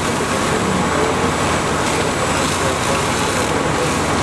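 Steady noise of a fire scene: a fire engine running with its pump, a hose line spraying water onto the burning building, and the fire itself, all blended into one even din with no breaks.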